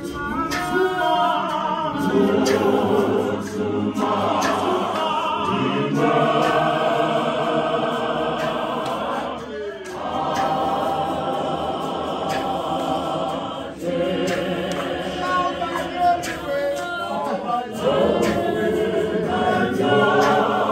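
Congregation singing a hymn together a cappella, many voices with no instruments, in phrases of a few seconds each with short breaks between them.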